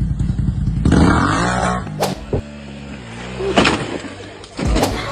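Quad bike engine revving hard, rising in pitch, then a small scooter engine running, with a couple of sharp knocks in the last seconds.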